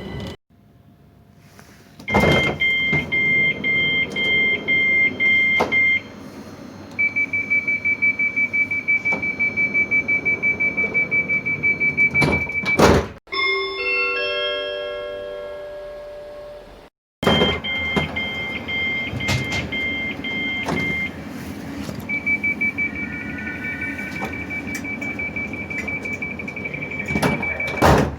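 Bombardier Electrostar train door warning sounds, heard twice. Each time, alternating two-tone beeps are followed by rapid single-tone pips, ending in the thud of the doors shutting. Between the two sequences there is a short run of stepped electronic tones falling in pitch.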